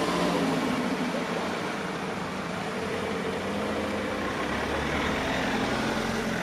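Road vehicle engines running steadily, with a low idling hum.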